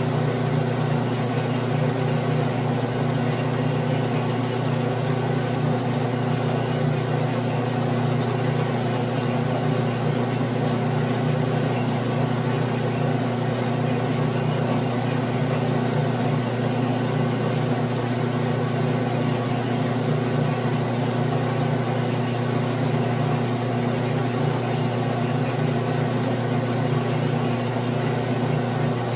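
Grizzly G9972Z bench lathe running at a steady speed with a low, even hum while its tool cuts a 6061 aluminum blank.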